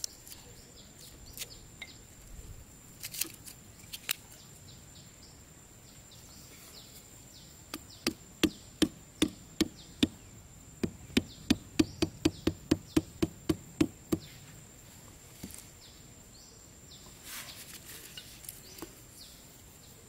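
A machete striking a wooden stick set in a hole in sandy ground: a run of about eighteen sharp knocks, roughly three a second, with a short pause partway through. Before it, a few light clicks of thin sticks being handled.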